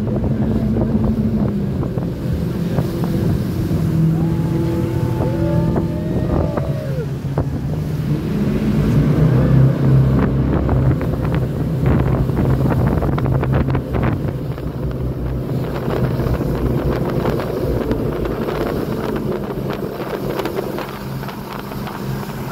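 Jet boat engine running under way at speed, its pitch rising and falling a few times, with wind buffeting the microphone and water rushing past the hull.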